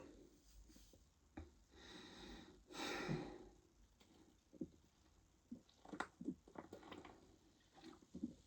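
Mostly quiet: a man drinking lemonade, with a short breathy exhale about three seconds in, then a run of small clicks and gulps as he swallows.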